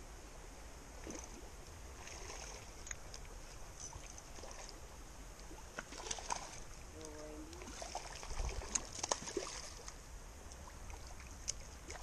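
Shallow creek water running steadily, with scattered light clicks and small splashes as a spinning reel is cranked to bring in a hooked rainbow trout.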